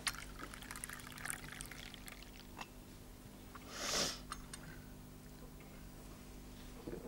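Tea pouring from a china teapot into a cup for about two seconds, followed by a few light clicks of china and a short soft hiss about four seconds in.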